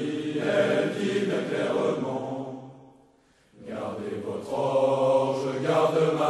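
Old recording of a sung French chanson: held musical notes that fade away about three seconds in, then after a short break the music starts again with sustained notes.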